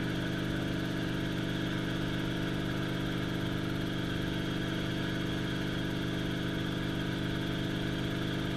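Light helicopter in cruising flight heard from inside the cabin: a steady drone of engine and rotor, holding one even pitch and level.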